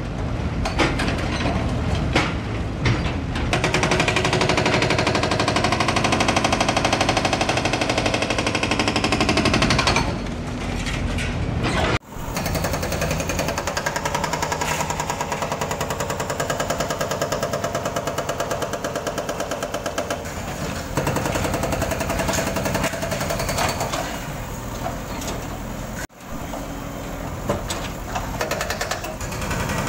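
JCB backhoe loaders' diesel engines running hard with a fast, steady rattle as their arms tear into a brick-and-concrete house. The sound is loudest in the first ten seconds and breaks off abruptly twice.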